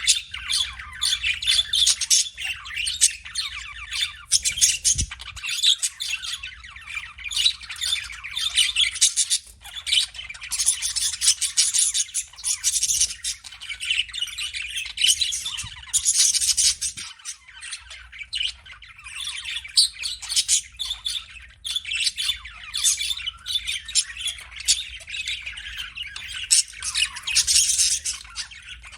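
Budgies (budgerigars) chirping and chattering without a break: a dense stream of short, high chirps.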